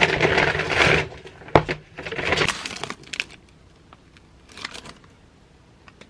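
Handling noises from a Kindle and its sleeve: rustling and crinkling, a sharp click about one and a half seconds in, more rustling, then a few faint taps.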